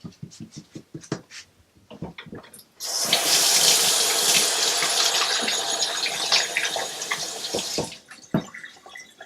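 Kitchen sink tap turned on about three seconds in, water running steadily into the sink for about five seconds, then shut off. Before it come a few light knocks and clicks of things handled on the counter.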